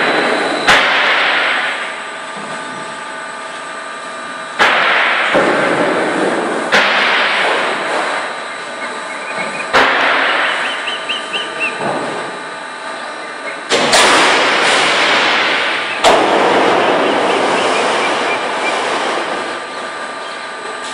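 Metal roofing-sheet production line running with a steady machine whine, and a loud bang every two to four seconds, each trailing off in a clattering rush of noise; six bangs in all.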